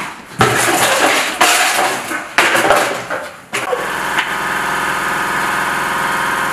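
Three loud, rough bursts of about a second each, then an engine catches about three and a half seconds in and runs steadily.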